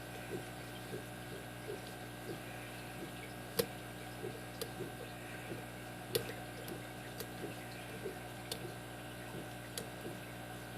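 Lock pick clicking against the pins inside a Kasp brass padlock's five-pin cylinder with anti-pick mushroom pins: faint, irregular ticks, with a couple of sharper clicks, over a steady low hum.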